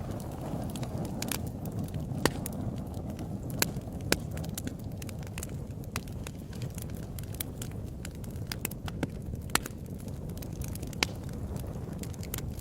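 Wood fire burning with a steady low rumble and irregular crackles, a few sharper pops standing out.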